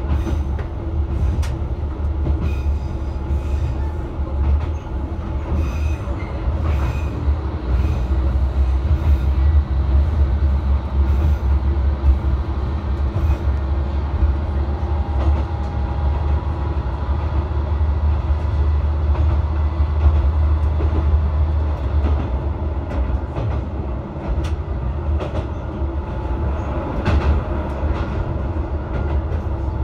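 Diesel railcar heard from its front end while running: a steady low engine drone with wheel and rail rumble and scattered clicks as the wheels pass over rail joints. The engine drone eases off about three quarters of the way through.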